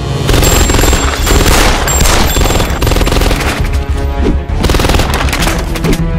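Rapid automatic gunfire sound effects over a loud action music score, the shots starting about a third of a second in.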